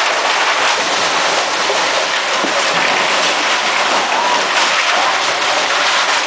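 Brick and concrete house collapsing: a steady rush of rumbling noise from falling masonry and rubble, with no single distinct crash.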